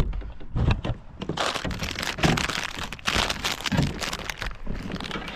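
Gear being handled and moved around aboard a kayak: irregular knocks and thunks with crinkling and rustling.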